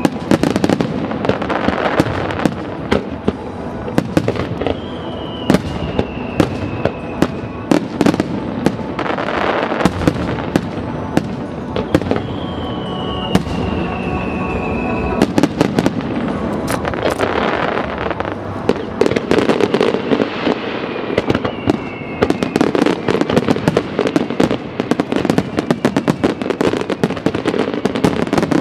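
Dense barrage of aerial fireworks: shells bursting in rapid, irregular bangs over continuous crackling, with a falling whistle of about two seconds heard three times.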